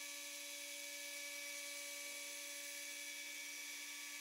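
Small benchtop belt grinder with an 80-grit belt running with a faint, steady whine while a soft-wood knife handle is shaped against the belt.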